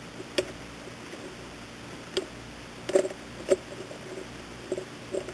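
A handful of light, sharp clicks and taps at irregular times from small parts being handled by hand, over faint background hiss.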